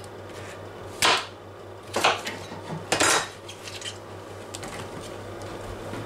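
Kitchen knife knocking on a plastic cutting board while cutting apple: three sharp knocks about a second apart, then a few lighter clicks.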